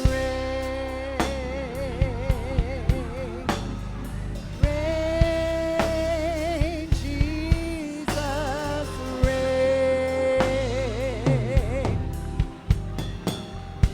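Live gospel-style church music: a voice holding long notes with wide vibrato over keyboard and bass, with drum kit hits throughout.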